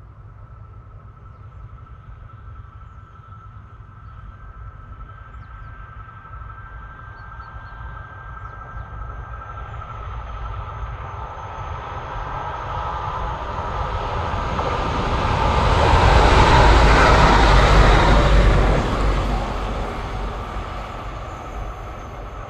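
Train passing on the line: it grows steadily louder as it approaches and is loudest for a couple of seconds about three-quarters of the way through, a dense rumble and rush of wheels on rails. It then fades as it moves away. A thin steady whine runs over the rumble.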